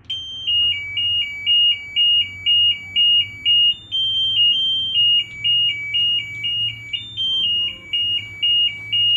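The piezo buzzer on an Onida six-button washing machine control board plays a beeping tune of short, high, pure notes stepping up and down in pitch, starting suddenly. This shows that the board is powered up.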